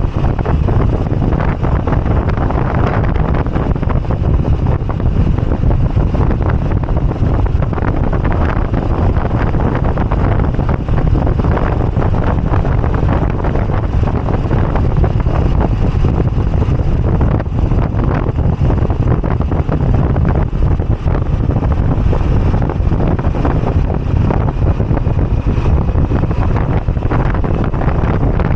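Wind rushing over the microphone on a moving Moto Guzzi V85TT, with the motorcycle's air-cooled V-twin engine running steadily beneath it.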